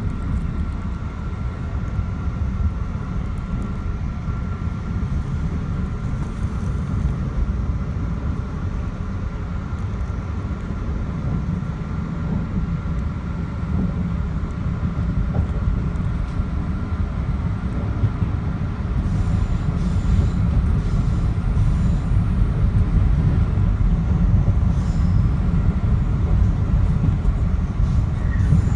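Metro-North commuter train running on the Hudson Line, a continuous low rumble of wheels and running gear with a thin steady whine over it. It grows louder about two-thirds of the way through.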